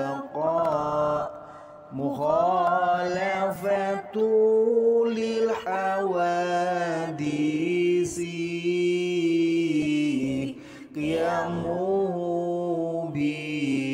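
Melodic sung recitation of the twenty obligatory attributes of Allah (sifat wajib), going from 'baqa' through 'mukhalafatu lil hawaditsi' to 'qiyamuhu bi-' in long, drawn-out notes that glide between pitches. Two brief pauses for breath come shortly after the start and near the end.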